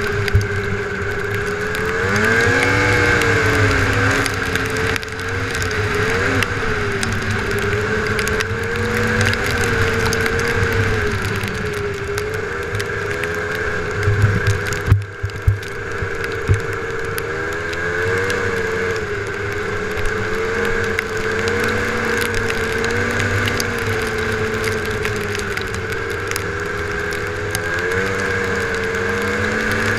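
Snowmobile engine running under way, its pitch rising and falling with the throttle over a steady higher whine. About halfway through there are a few sharp knocks and a brief drop in level.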